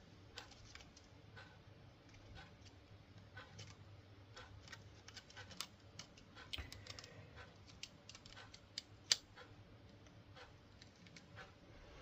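Faint, irregular small clicks and ticks of small plastic and metal parts of a Lima 94XX model locomotive being handled and pushed into place, with one sharper click about nine seconds in, over a faint low hum.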